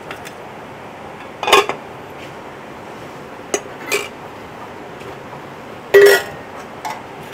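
Metal serving spoons clinking and scraping against a steel plate and cooking pans while food is dished out. There are about five sharp clinks, the loudest about one and a half seconds in and at about six seconds, the last one ringing briefly.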